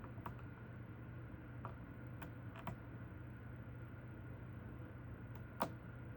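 Faint, scattered metallic clicks of lock picks working the pins of a nine-pin Goal D9 pin tumbler lock, about six over a few seconds, the loudest near the end, over a steady low hum.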